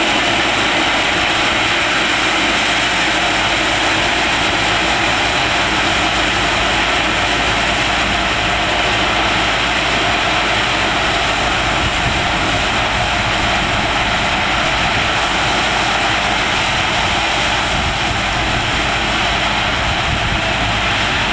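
Ballast hopper train working at a ballast-spreading site: a loud, steady, even mechanical noise that holds at one level throughout.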